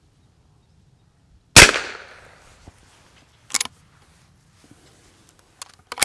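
A single shot from a Henry H001 .22LR lever-action rifle firing a CCI rat-shot shotshell (number 12 shot), a sharp crack with a short ringing tail. About two seconds later comes a sharp metallic sound as the lever is thrown open, then a few light clicks near the end as the action is closed.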